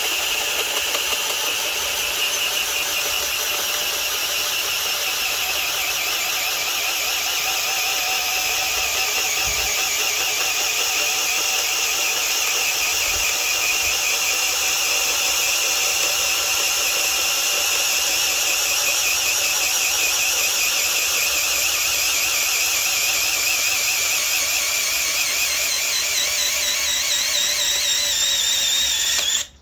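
Metabo HPT DV18DC 18-volt cordless hammer drill running under heavy load in low gear (speed 1), driving a large bit through wood with a steady high motor whine. It is bogging down a little under the load, and it stops suddenly near the end.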